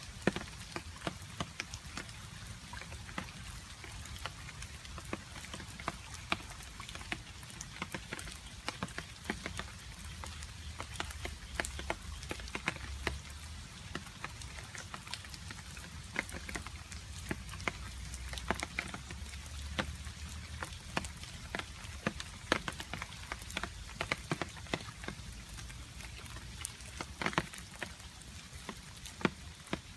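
Rain falling, with frequent irregular drips and droplets striking a surface over a steady hiss of rain. A faint low rumble runs underneath through the middle stretch.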